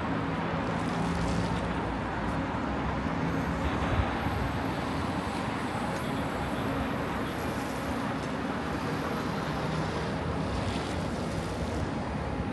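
Fog cannon truck running: a steady, very loud rushing blast from its mist-blowing fan, over a steady low engine hum.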